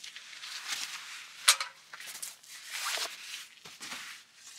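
Fabric rustling in short irregular swells as camping gear is handled, with one sharp click about a second and a half in.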